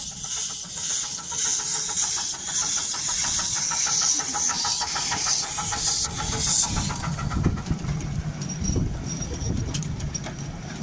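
Tinkerbell-type 7¼-inch gauge miniature steam locomotive working, with a strong hiss of steam broken into quick, even beats. About seven seconds in the hiss stops and a lower rumble with scattered clicks follows.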